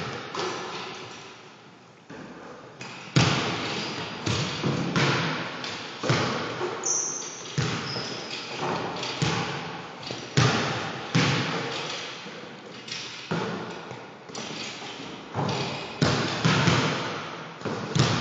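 Basketballs bouncing on a hardwood gym floor and striking the rim and backboard, irregular thuds about one or two a second, each echoing in the large hall. A couple of brief high squeaks come in the middle.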